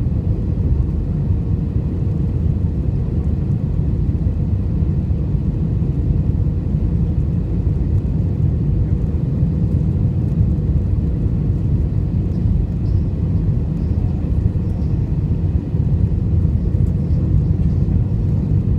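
Airbus A320 cabin noise in flight: a steady low rumble of engines and airflow, with a faint constant hum.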